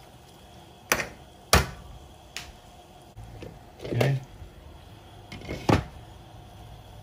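A metal spoon knocking sharply against a stainless steel pan a few times as a stew is stirred, then a clank as a glass lid is set down on the pan near the end.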